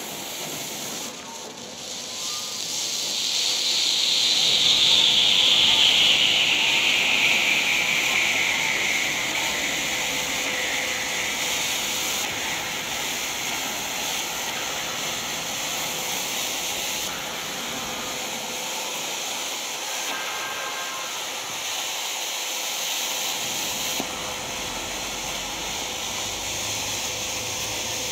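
An 18 mm black smoke bomb burning, with a steady hiss of smoke jetting out. The hiss swells over the first few seconds and falls in pitch, then holds steady.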